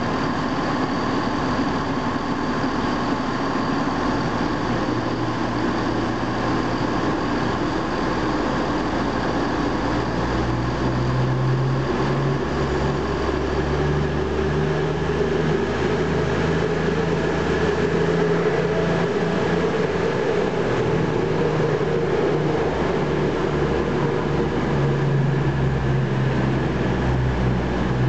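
Class 222 Meridian diesel multiple unit's underfloor diesel engines running at the platform, then opening up about ten seconds in to a deeper, louder note as the train pulls away and picks up speed past the listener.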